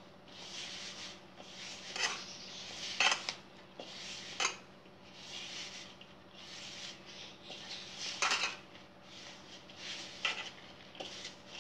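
Hands rubbing and mixing flour, ghee and curd into a soft, crumbly dough in a wide vessel: a run of soft rubbing strokes about once a second, with a few short knocks and clinks against the vessel.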